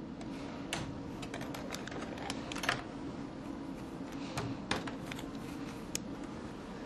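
Scattered light clicks, taps and rustles of medical supplies being handled at a plastic drawer cart, over a steady low room hum.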